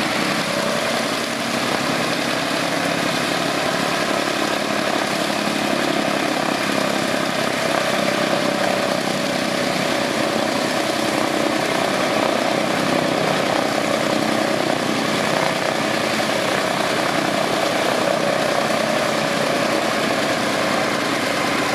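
Vought F4U Corsair's Pratt & Whitney R-2800 radial engine running steadily at low power, propeller turning, as the warbird taxis on the ramp.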